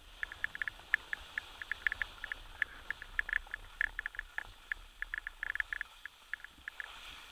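Quick, irregular clicking and rattling, several clicks a second, from a camera mount shaking as the skier carrying it moves down a ski run, over a faint low rumble.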